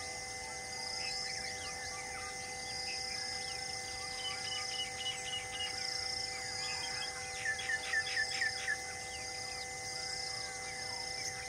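Birds chirping and calling over a steady, pulsing insect drone, with a quick run of about seven descending whistled notes past the middle. A few steady held tones run underneath.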